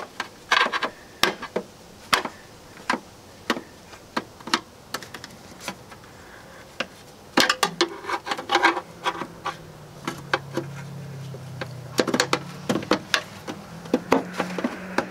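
Irregular sharp plastic clicks and knocks of a flathead screwdriver working against the retaining clips of a Jeep Wrangler JK's plastic fuel filler door housing, pressing the clips in to free the housing. The clicks come more often in the second half, where a low steady hum joins in.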